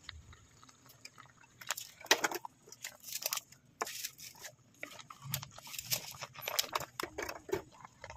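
Dry spaghetti strands and cut cubes clicking and crunching against each other in a pot, in irregular clicks and crackles that start a couple of seconds in.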